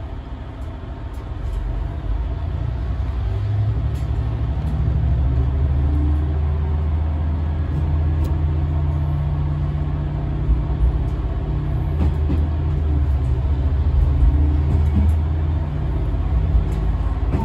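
Diesel railcar running under power, its engine note growing louder over the first few seconds and then holding steady, with scattered light clicks from the track.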